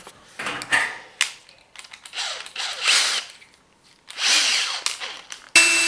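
Cordless drill-driver with a Torx bit driving screws into a dishwasher door cover: several short runs of the motor, then a brief, louder steady whine near the end.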